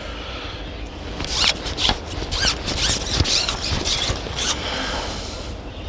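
A hooked fish splashing and thrashing as it is hauled out of muddy pond water and dragged up through grass, making irregular scratchy rustles and splashes that are busiest in the middle and ease off near the end.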